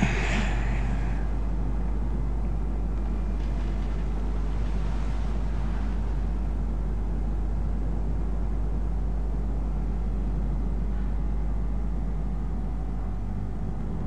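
Steady low rumble and hum with no distinct events, a continuous background ambience, with a brief soft hiss in the first second.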